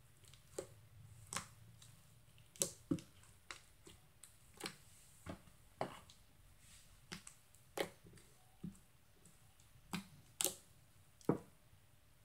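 Black slime being pressed and squeezed by hand on a hard tile board, giving a string of irregular sharp clicks and pops, roughly one or two a second.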